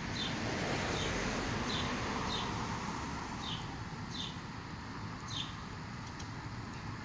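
Steady outdoor background noise with a bird giving short, falling high chirps, repeated irregularly every half second to a second or so.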